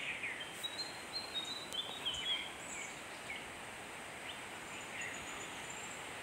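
Steady outdoor background hiss with a few short, high bird chirps scattered through it, mostly in the first half.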